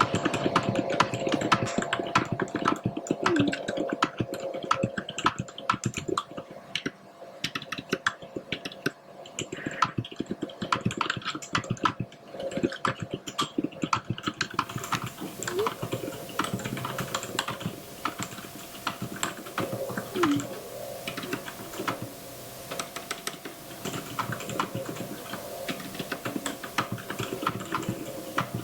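Typing on a computer keyboard: rapid, irregular key clicks, picked up by a Hollyland Lark M1 wireless microphone as a sound test.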